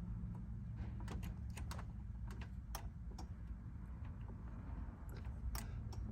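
Scattered, irregular light clicks over a steady low hum.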